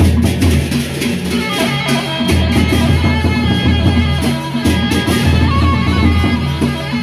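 Sasak gendang beleq gamelan playing: large double-headed barrel drums beaten in a driving rhythm under dense clashing of hand cymbals (ceng-ceng), with ringing metallic tones over a low sustained hum from the gongs that changes pitch twice.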